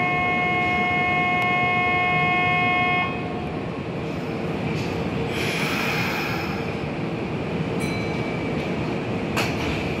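A steady electronic departure warning tone on a train platform, several pitches held together, cuts off about three seconds in. The stopped train's steady hum carries on underneath, with a brief hiss around the middle and a couple of sharp clicks near the end.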